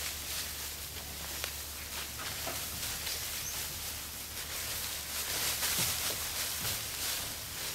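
Dry leaf litter rustling and ticking faintly now and then as a macaque picks through it with its hand, over a steady outdoor hiss.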